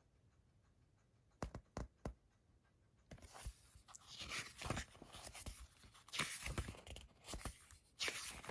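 Paper booklet pages being turned and handled, rustling irregularly, after three light taps about a second and a half in.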